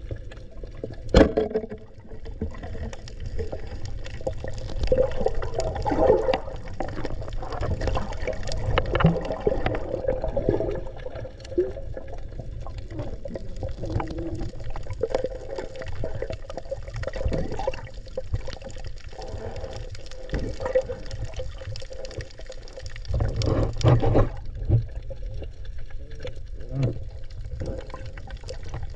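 Muffled underwater water movement heard through a diving camera's housing, with a constant low rumble and swishing. About a second in there is a sharp snap, the speargun firing; another loud burst of churning water comes near 24 seconds.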